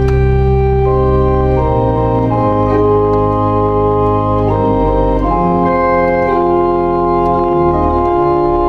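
Church pipe organ playing held chords over a deep pedal bass, the chords changing every second or so; the lowest bass notes drop away about five seconds in.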